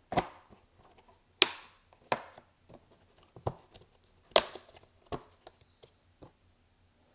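Sharp plastic clicks and knocks, about half a dozen spread over some six seconds, as replacement cabin air filters are pushed and snapped into the plastic filter housing under the hood.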